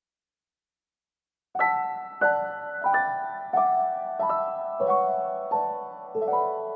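Silence, then about a second and a half in, gentle piano music begins: notes struck about every two-thirds of a second, each ringing and fading.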